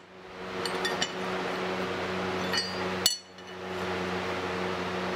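A hammer striking a steel center punch on the tang of a knife blank clamped in a vise, marking where holes will be drilled. There are a few light clinks, then one sharp metallic strike about three seconds in, over a steady machine hum.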